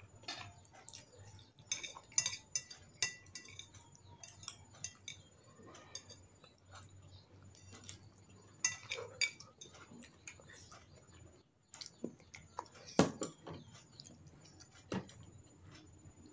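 Cutlery clinking and scraping against a glass noodle bowl and china plates during a meal: scattered light clinks, with the loudest one about thirteen seconds in.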